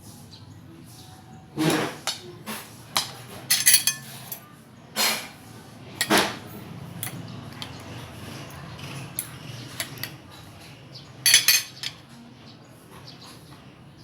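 Spoon and fork clinking and scraping on plates and serving dishes, a scatter of sharp knocks and clinks with a louder cluster near the end.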